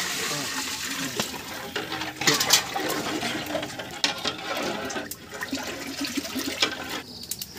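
Water poured from a metal basin into a large aluminium cooking pot of curry, a rushing pour lasting a second or two. It is followed by a long ladle stirring the gravy and knocking against the pot a few times.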